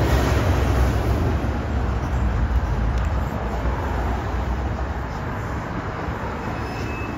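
City street traffic: cars passing with a low, steady rumble of engines and tyres, loudest in the first few seconds and easing off after that.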